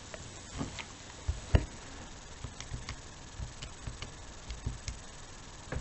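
Buttons of a Texas Instruments TI-83 Plus graphing calculator being pressed to key in a multiplication: a series of soft, irregularly spaced clicks, with a louder knock about one and a half seconds in.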